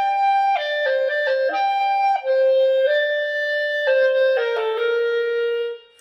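A solo clarinet playing a short melody of held notes in a single line, stopping near the end.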